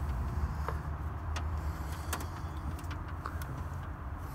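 Faint clicks and taps of wires and test leads being handled, over a steady low rumble.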